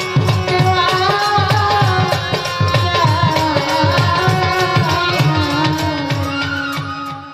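Woman singing a Bengali folk song live, with a steady drum rhythm and melodic accompaniment. The music fades out near the end.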